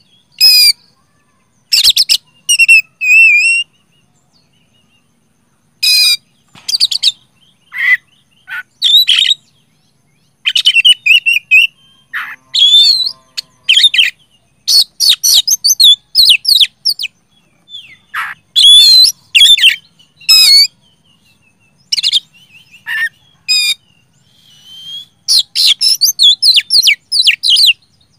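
Oriental magpie-robin singing loudly in full song: bursts of short, sharp, high-pitched whistled notes and rapid phrases, broken by brief pauses and one longer pause about four seconds in.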